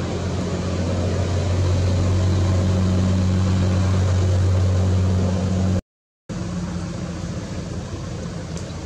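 A steady low engine-like hum over a hiss of noise, broken by a brief dropout to silence about six seconds in.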